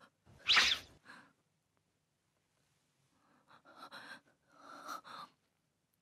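A woman breathing fast and hard in panic. A sharp, loud gasp comes in the first second, then a run of quick, shaky breaths from about three seconds in.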